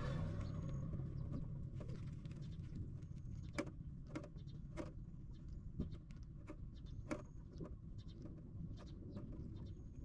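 Steady low rumble of background noise with scattered sharp clicks and scratchy rustles, and a few faint, brief high chirps.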